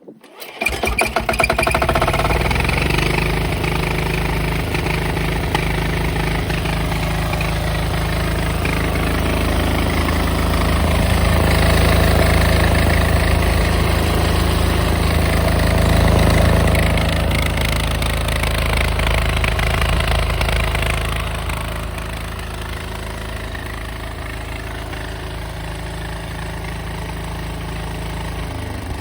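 Air-cooled diesel generator engine starting up and catching at once, then running steadily at speed. About twenty seconds in it gets somewhat quieter and settles into an even run.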